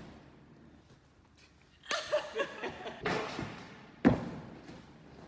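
Laughter about two seconds in, then one sharp thud about four seconds in as a gymnast lands a front somersault off a tumble track onto a crash mat.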